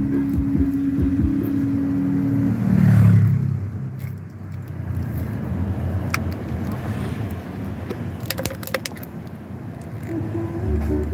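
Road and wind noise from riding along a street in a moving vehicle, under background music that stops about two and a half seconds in and returns near the end. A quick run of sharp clicks comes around eight seconds in.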